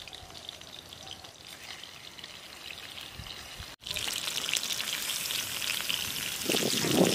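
Faint outdoor background for the first few seconds, then rohu fish pieces rubbed with salt and turmeric sizzling and crackling as they are dropped into hot mustard oil in a wok. The spitting grows louder near the end as more pieces go into the oil.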